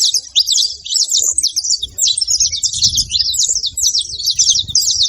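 Several saffron finches chirping and twittering in a fast, dense stream of high notes, with a brief pause about a second and a half in.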